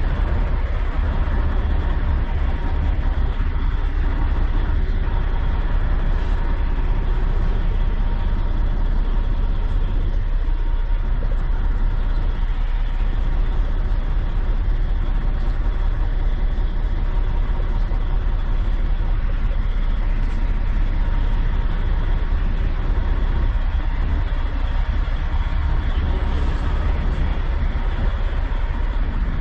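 Kenworth W900 semi truck's diesel engine idling, a steady deep rumble with a thin steady tone above it.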